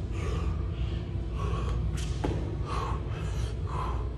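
A man breathing hard and gasping between burpees, in several short breaths from about a second and a half in, with a couple of light knocks around the two-second mark as he drops to the floor. A steady low hum runs underneath.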